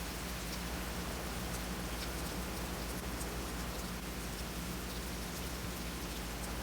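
Steady rain falling, with scattered faint drop ticks, over a steady low hum.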